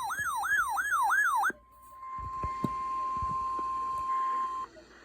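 A warbling siren-like alert tone sweeps rapidly up and down for about a second and a half. It then gives way to a single steady weather-radio attention tone held for about three seconds, the alarm that opens an emergency alert broadcast.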